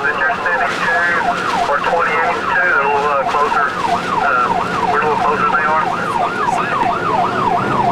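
Fire apparatus electronic siren in fast yelp, a rapid up-and-down wail repeating about three times a second, with a second siren's sweeps overlapping during the first few seconds. A steady engine drone runs underneath.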